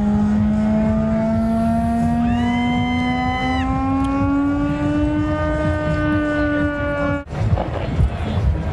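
A loud, sustained droning tone of several pitches slowly rising together cuts off suddenly about seven seconds in. Crackling and sharp bangs of fireworks follow.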